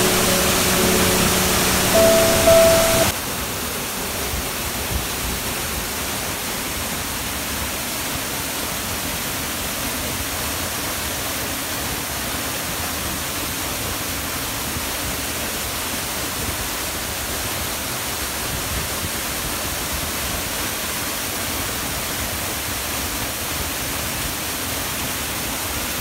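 Waterfall: a steady, even rush of water falling close by onto rock. Background music plays over it for about the first three seconds, then cuts off.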